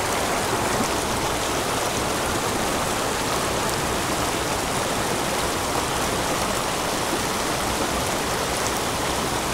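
Small mountain stream running over a short cascade and riffles into a pool: a steady, even rush of water.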